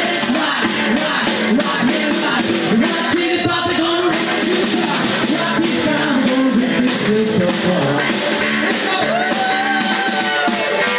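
Live rockabilly band music: an electric hollow-body guitar and a single snare drum, with a man singing.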